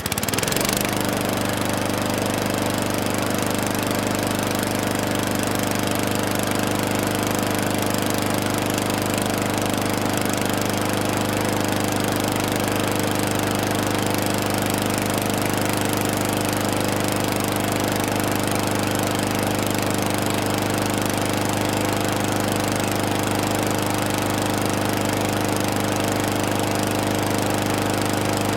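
Gas-powered lawn mower engine running steadily at an even speed and pitch.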